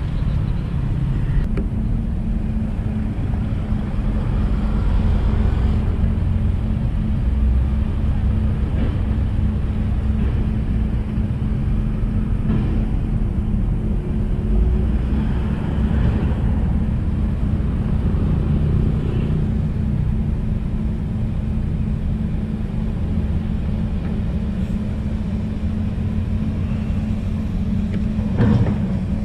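Construction-site machinery running: a steady engine hum over a heavy low rumble.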